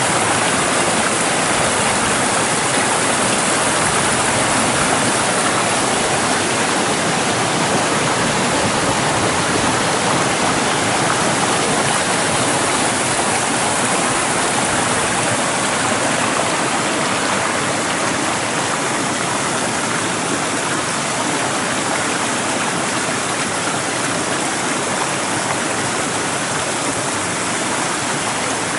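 Shallow rainwater runoff in a normally dry ravine bed (rambla) rushing and splashing over stones and gravel: a steady, unbroken rush of running water.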